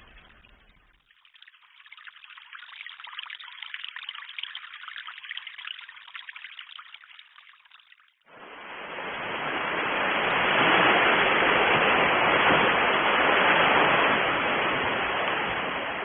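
Running water: a fainter, thinner flow for the first half, then about halfway an abrupt cut to a much louder, fuller steady flow of water.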